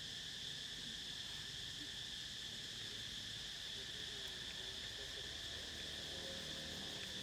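Steady insect chorus: a continuous high-pitched drone that holds level throughout.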